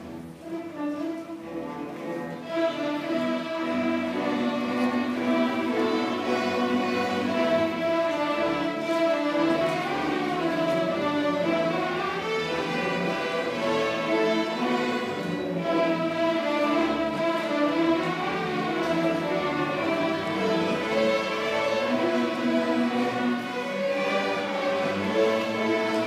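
Young students' string orchestra playing, with violins and cellos together. It is softer for the first two seconds or so, then the full section comes in louder.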